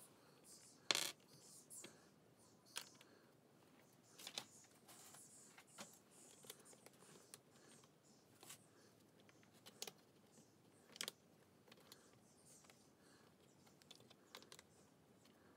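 Scattered small clicks and taps of plastic glazing packers being handled and pressed into a uPVC window frame's channel, the sharpest about a second in, over quiet room tone.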